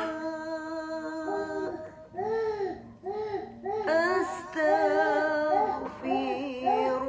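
A young child's voice in drawn-out, pitched vocal sounds: a held note, then a string of short rising-and-falling syllables about two a second, then longer wavering notes near the end.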